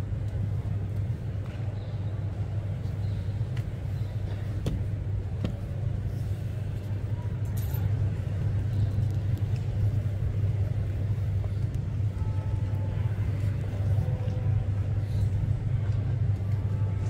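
Steady low rumble throughout, with a few faint clicks and some faint distant voices in the second half.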